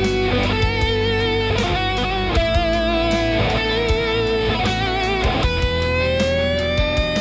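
Electric guitar, a 1991 Gibson Les Paul Standard, playing a lead line of held notes with wide vibrato over a steady percussive beat. It ends on a long bent note, about two seconds, that rises slowly and sags back.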